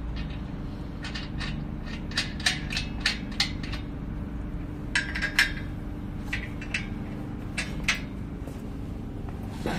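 Steel bolts and nuts clinking and tapping against a painted steel square-tube frame as they are fitted by hand: a dozen or so irregular sharp clicks, most of them between about one and eight seconds in, over a steady low hum.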